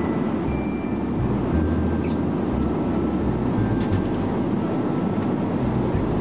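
Steady droning cabin noise of an airliner, the engines and airflow heard from inside the passenger cabin.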